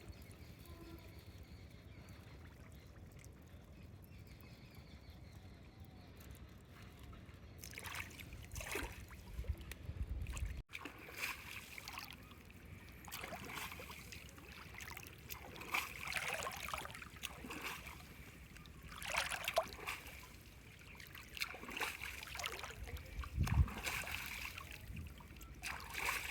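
Water sloshing and splashing in irregular surges over a steady low background noise, with a sudden break about ten seconds in.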